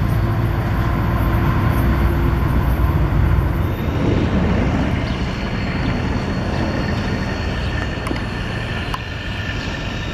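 An NJ Transit ALP45DP dual-mode locomotive running on its diesel engines as it approaches with a passenger train. About four seconds in, this gives way to a Navy Sikorsky H-53 helicopter flying overhead: steady rotor and engine noise with a high, steady whine.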